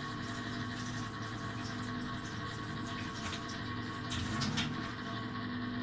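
Water running steadily from a tap while a sea urchin is rinsed clean under it, with a few light clicks and knocks from handling the shell about three to four and a half seconds in.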